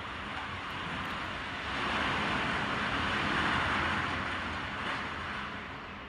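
Typhoon wind blowing in a strong gust, a broad rushing roar that builds about two seconds in, peaks a second or two later and then eases off.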